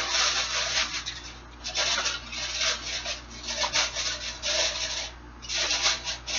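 A sheet of aluminum foil crinkling as it is pressed down and sealed around the edges of a baking dish, in several rustling bursts with short pauses between.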